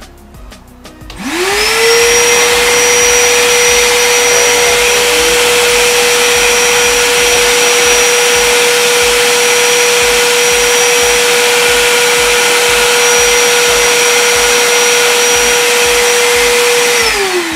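Iwata CM13-WDV10L wet-and-dry vacuum cleaner running as a blower. The motor starts about a second in with a rising whine, then runs at a steady high whine with rushing air. It is switched off near the end and winds down.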